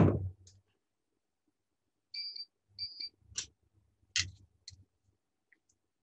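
A sharp knock, then an induction hob's control panel beeping: one beep about two seconds in and a quick double beep just after. A few light metal clicks follow as tongs lift pasta out of the steel pot.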